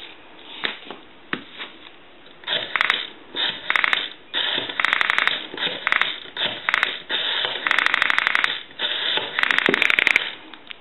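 Western Electric 202 rotary dial being dialed digit by digit: a few single clicks, then a series of short bursts of rapid, evenly spaced pulse clicks, one burst for each digit as the dial spins back.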